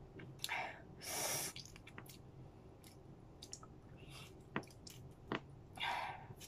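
Soft eating sounds from a person chewing grapefruit: a few noisy breaths or sniffs through the nose, the longest about a second in, with short wet mouth clicks in between.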